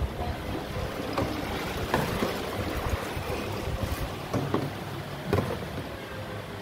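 Clunks of 1-litre plastic engine-oil bottles being handled and set down, several sharp knocks at irregular moments, over a steady low machine hum.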